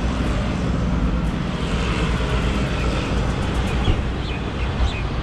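A car driving on the highway: steady engine and road rumble with tyre noise.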